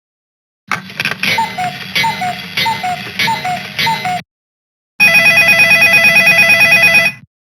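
Two Samsung SGH-S100 phone ringtones played back on an MCP-MA7. The first, starting just under a second in, is a short synth melody with a falling two-note figure repeated about twice a second. After a brief pause comes a fast pulsing electronic ring, like a telephone bell, at about nine pulses a second, which stops just before the end.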